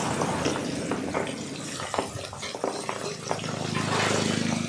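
Masala-coated fish pieces deep-frying in hot oil: a steady bubbling sizzle dotted with small crackles and pops. A low steady hum comes in about three seconds in.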